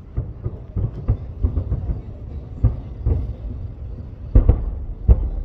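Distant aerial fireworks shells bursting: a quick, irregular run of booms and crackles, with the loudest reports about four and a half seconds in and again near the end.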